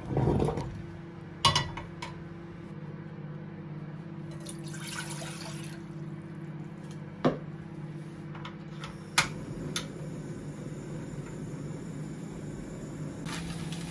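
Water poured from a bowl into a hammered metal saucepan, splashing into the pan about five seconds in. Then a few sharp clicks as the portable gas cassette stove is lit, over a steady low hum.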